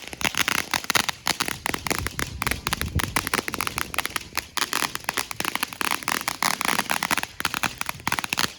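Fireworks crackling: a dense, unbroken run of sharp pops, many a second.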